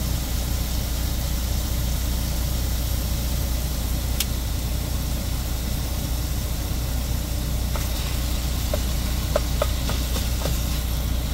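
A semi truck's diesel engine idling with a steady low hum, under a faint hiss of ground pork frying in a skillet. From about eight seconds in, a spatula scrapes and clicks against the pan as the meat is stirred.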